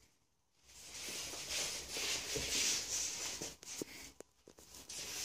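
Rustling and scuffling, then a run of light taps and footsteps on a wooden floor as people and a small dog move about.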